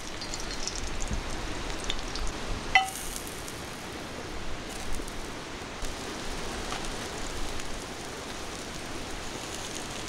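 Oil sizzling and crackling steadily in an iron frying pan over charcoal as garlic and sliced vegetables fry, with a single sharp metallic clink of utensil on pan about three seconds in.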